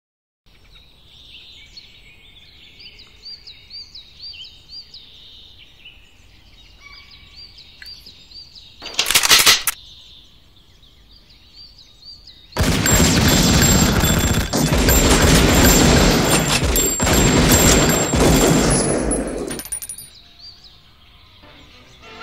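Birds chirping, then a short loud burst about nine seconds in. About seven seconds of loud, dense rapid gunfire follows and then dies away, and faint chirping returns near the end.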